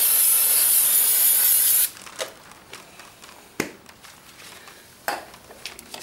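Aerosol can spraying in a steady hiss for about two seconds, then cutting off suddenly; a few light clicks follow.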